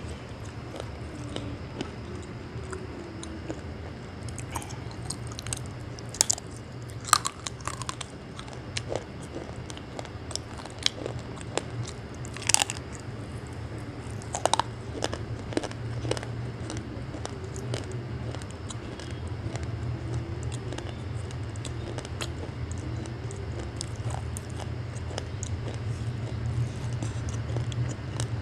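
Close-miked biting and chewing of crunchy, water-soaked pieces. Sharp crunches are scattered through, the loudest between about six and fifteen seconds in, over a steady low hum.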